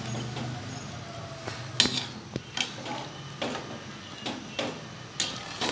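A metal ladle stirring rice in a metal pot of boiling chicken biryani masala, scraping and clinking against the pot's side in irregular knocks. The loudest knock comes about two seconds in.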